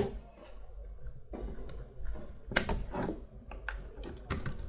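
Scattered plastic clicks and taps as a USB cable plug is pulled out of one output port of an Ambrane Capsule power bank and pushed into the other, with handling rustle between the clicks.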